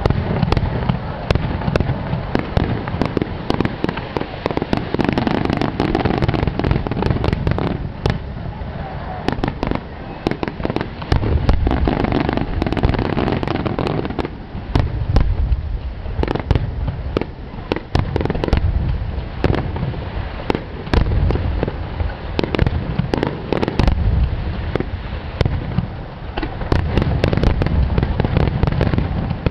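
Rapid-fire barrage of aerial fireworks shells bursting in quick succession: a dense, unbroken run of sharp reports and crackles over deep booms, with no pauses.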